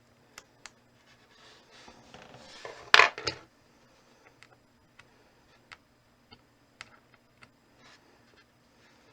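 Hands working on small phone-repair parts: light clicks and taps, with a crinkling rustle that builds to a loud sharp crackle about three seconds in, then scattered single ticks.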